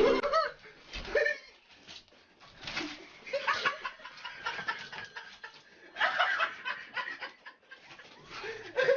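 People laughing in short bursts, three times, with quieter pauses between.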